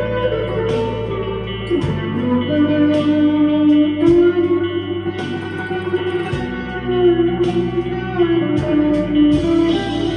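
Electric guitar (a Harley Benton CST-24) played through the crunch channel of a Vox AV15 amp with reverb, delay and chorus: a slow lead line of held notes, some of them bent or slid in pitch.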